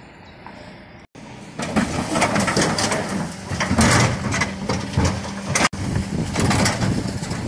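Mercedes Econic refuse truck with a Geesinknorba GPM IV body working at the kerb: its engine runs with a steady low hum under dense clatter and knocking from plastic wheelie bins and the rear bin lifter. The noise jumps up sharply about a second and a half in, and the sound cuts out for an instant twice.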